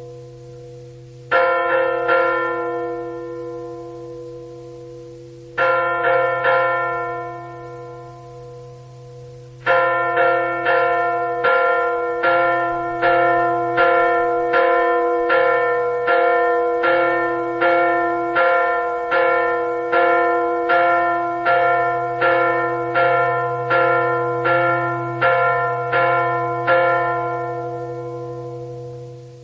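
A bell struck repeatedly, each strike ringing on with the same tones: a couple of strokes, a pause, a few more, then a steady tolling of nearly two strokes a second that stops near the end and rings away, over a steady low hum.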